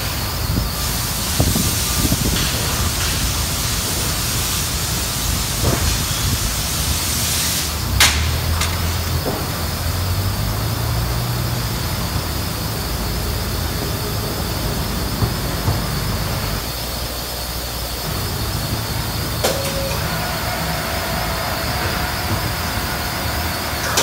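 Bus assembly plant machinery as an overhead crane hoist carries a school bus body: a steady high hiss that stops with a sharp clank about eight seconds in, a low machine hum, and a steady tone in the last few seconds.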